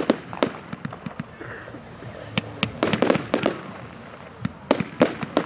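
Fireworks going off in a display: clusters of sharp bangs and cracks, the densest about three seconds in and again near the end, with quieter gaps between.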